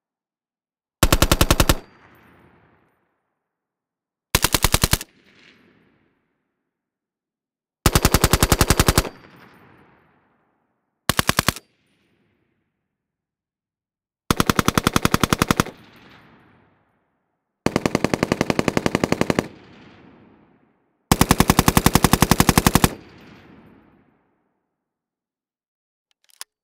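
FN FAL 7.62×51mm NATO battle rifle firing on full automatic: seven bursts of rapid shots, from short ones of about half a second to long ones of nearly two seconds, each followed by an echo dying away, then a single shot near the end.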